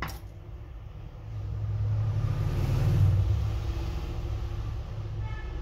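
Low engine rumble of a passing road vehicle, swelling to its loudest about three seconds in and then holding; a sharp click right at the start.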